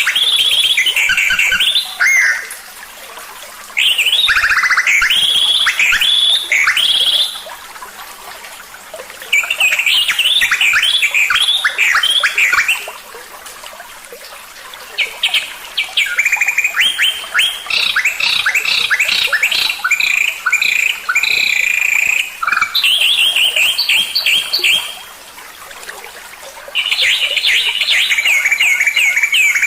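Songbird song used as a masteran training track for cage birds: loud, rapid trilled and chattering phrases, each lasting a few seconds, repeated with short pauses between them.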